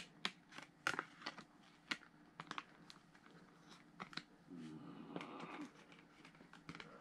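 Scattered faint clicks and taps from a Blu-ray steelbook case and its discs being handled.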